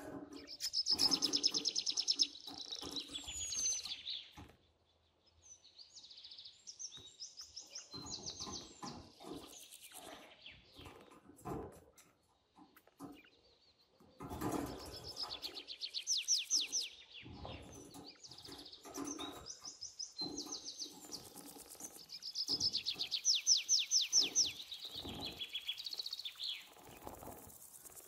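Budgerigars chirping and chattering in bursts of rapid high notes, mixed with splashing and wing flapping as a budgie bathes in a shallow tub of water. The chatter comes in three main bursts, with short lulls between.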